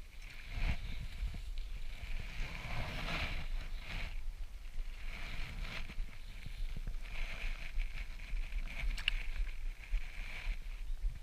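Shimano Stradic spinning reel being cranked to retrieve a lure, in three spells of winding with short pauses between them, over a low rumble.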